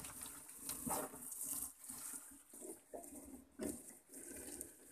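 Wet crab gill net being hauled hand over hand into a small boat, water dripping and splashing off the mesh, with a sharp knock at the start.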